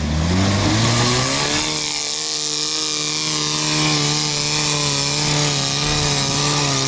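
Birjuk all-terrain vehicle's engine revving up over the first second or so, then held at high, steady revs under load as it climbs a steep snowy slope.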